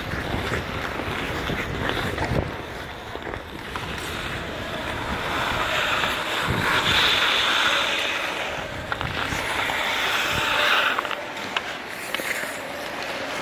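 Ice skates scraping and gliding over arena ice, a steady hiss that swells for several seconds in the middle, with a few light clicks of bandy sticks on balls.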